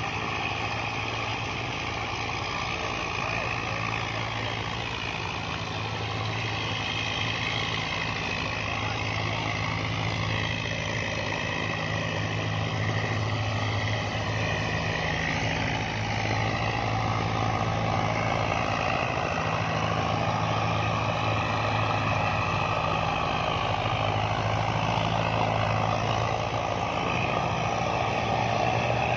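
A tractor's diesel engine running steadily under heavy load while pulling three disc harrows hitched in series through loose soil. It gets a little louder about halfway through.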